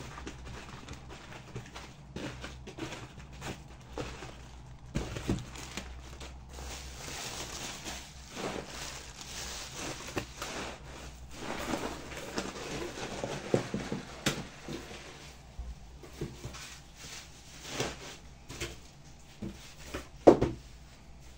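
Objects being handled: irregular rustling with scattered clicks and knocks, and one sharper knock near the end.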